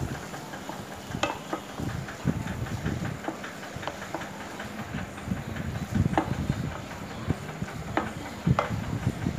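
Spatula stirring cooked butter beans and onion-tomato masala in a nonstick kadai, with irregular scrapes and clicks against the pan; the sharpest clicks come about a second in and again around six to nine seconds in.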